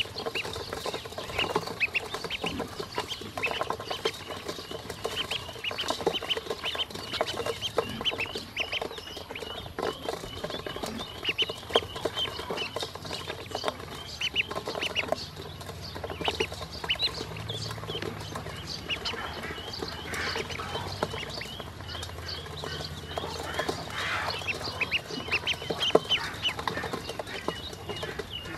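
Ducklings peeping constantly in short, high notes while pecking at feed in a stainless steel bowl, their bills tapping and clicking sharply on the metal.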